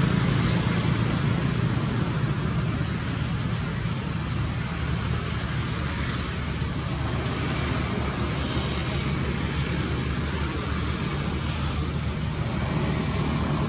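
Steady outdoor background noise: a low rumble under an even hiss, like distant road traffic, with a faint tick about halfway through.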